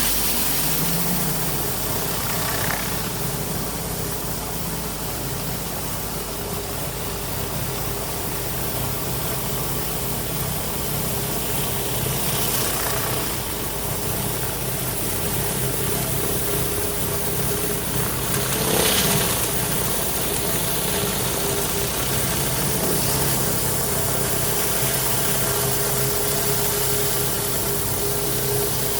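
Pressure washer engine running steadily, with a constant hiss over it; the sound swells briefly about two-thirds of the way in.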